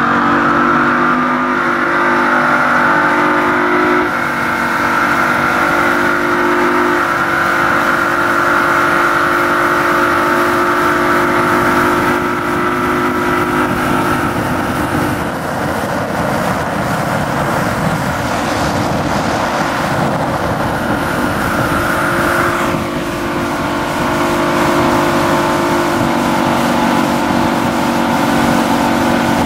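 Towboat's engine running steadily under load, with a rush of water from the hull and wake. Its pitch shifts slightly a few times.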